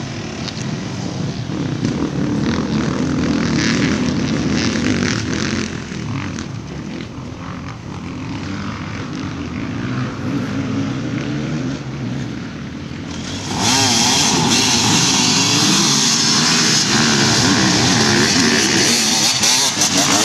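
A pack of motocross motorcycles with engines revving and wavering in pitch. From about 13 seconds in it becomes suddenly much louder as the bikes pass close by.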